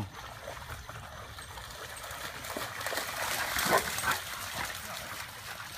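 Dogs playing in shallow flood water and on wet grass: splashing and rustling that swells in the middle, with one short dog bark a little under four seconds in.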